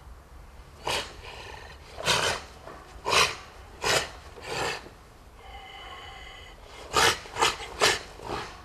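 A karateka's short, forceful, hissing exhalations, each timed to a technique of a kata: one about a second in, four more over the next few seconds, a pause, then a quick cluster of four near the end.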